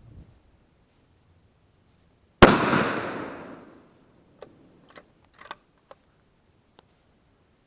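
A single rifle shot from a Howa 1500 in 6.5 Creedmoor: a sharp crack about two and a half seconds in with an echo that trails off over about a second and a half, followed by a few light clicks.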